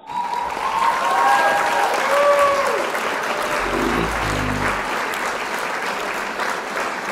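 Applause and cheering, with a few gliding calls in the first three seconds and a short low call about four seconds in.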